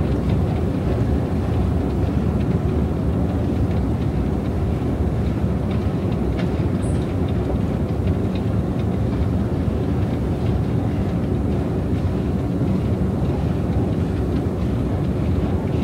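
Long subway-station escalator running: a steady low mechanical rumble that does not change.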